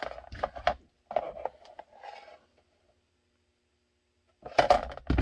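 Hands handling a formed plastic holster shell and a plastic gun mold, with light rubbing and pencil scratching. After a pause, a quick cluster of plastic clicks and knocks comes near the end.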